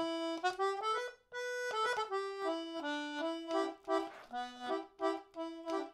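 Stagi Anglo concertina playing a melody of short held reedy notes, some as two-note chords, with a brief break about a second in.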